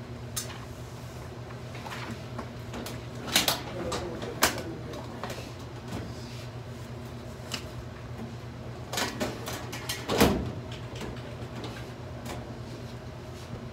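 Papers and office items being handled on a desk, with scattered knocks and a louder clunk about ten seconds in as a filing cabinet drawer of hanging folders is pulled open, over a steady low hum.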